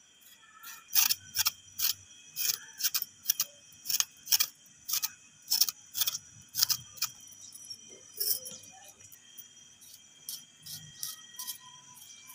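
Small kitchen knife scraping and paring the skin off a raw potato in short, sharp strokes, about two a second, which stop about two-thirds of the way through. A steady high-pitched trill sounds underneath.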